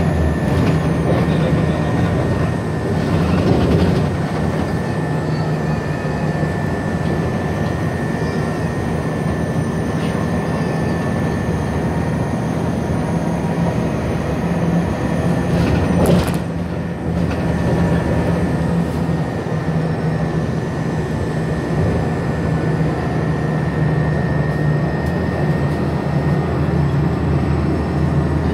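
Steady drone of a moving vehicle, low engine hum and running noise with a thin steady whine above it. A single sharp knock about sixteen seconds in.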